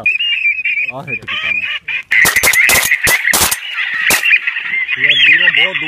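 A flock of waterfowl calling overhead: a dense, continuous chatter of high calls, with deeper wavering honks about a second in and again near the end. Several sharp cracks come between about two and four seconds in.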